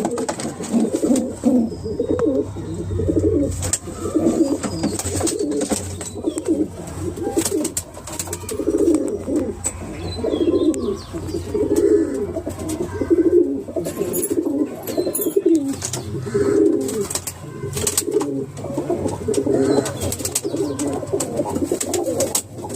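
Domestic pigeons cooing over and over, a low warbling coo roughly once a second, with scattered light clicks and taps in between.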